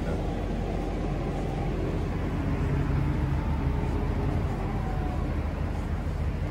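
Steady low mechanical drone, with faint held tones above it.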